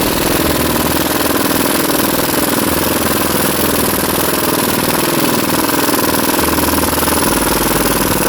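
Air impact wrench on a 10-bar supply hammering continuously on a wheel nut, running the nut along a damaged wheel stud thread hard enough to heat it.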